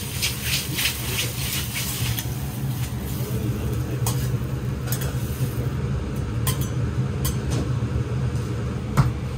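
Metal spatulas scraping and clacking on a steel teppan griddle as noodles are tossed and fried: quick repeated strokes for the first two seconds, then scattered single clinks, the loudest near the end. A steady low hum runs underneath.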